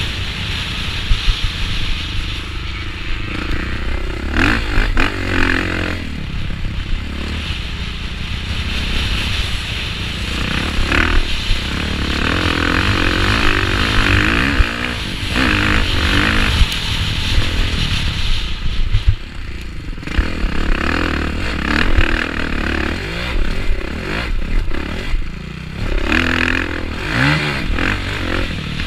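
Motocross bike engine revving hard and easing off again and again, its pitch rising and falling through the gears, heard from the rider's helmet with a steady low wind rumble and scattered knocks and clatter from the rough track.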